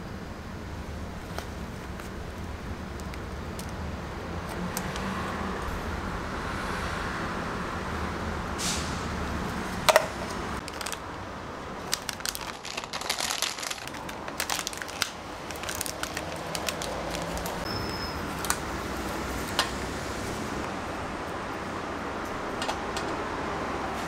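Plastic blister packaging crinkling and clicking as it is handled and opened, with sharp clicks (the loudest about ten seconds in) and a burst of crackly rustling a little after, over a steady low background hum.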